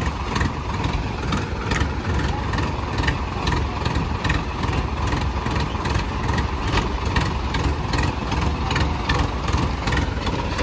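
Sonalika 47 tractor's diesel engine running steadily under load while towing another tractor, with sharp pulses beating two or three times a second.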